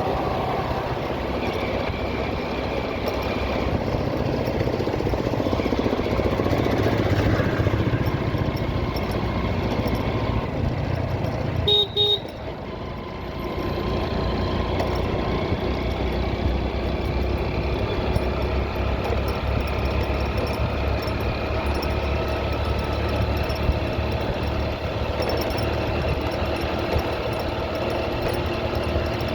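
Motorcycle engine running steadily with road and wind noise while riding, with a brief double horn beep near the middle.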